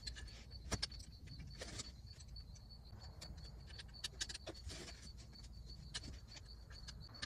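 Scattered light clicks and knocks of a climbing treestand's metal frame and hardware being handled while its nuts are taken off for assembly. A faint, steady high insect chirp runs underneath.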